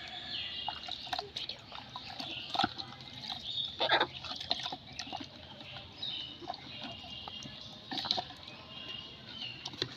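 Water sloshing and dripping in a plastic bucket as a hand washes a chicken's feet, with scattered small splashes.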